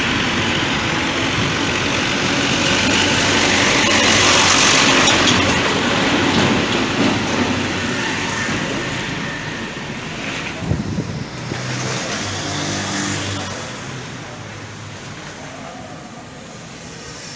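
Motor-vehicle and traffic noise: a steady rumble and hiss that swells about four to five seconds in, then slowly fades, with a short knock just before the eleventh second.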